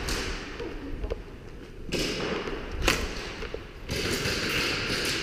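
Footsteps and gear rustling of an airsoft player moving on a concrete floor, with a few sharp knocks, the loudest about three seconds in.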